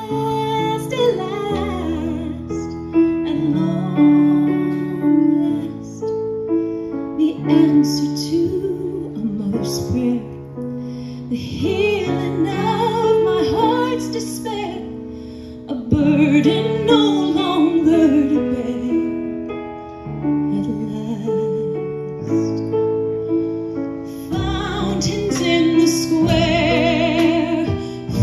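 A woman singing, her held notes wavering with vibrato, accompanied by piano and a plucked upright bass.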